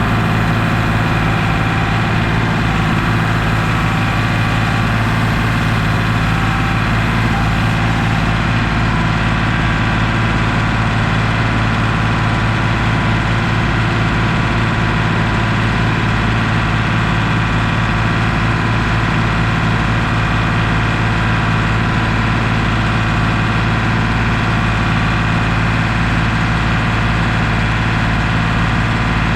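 Large engine of a piece of heavy equipment idling steadily, with no change in speed.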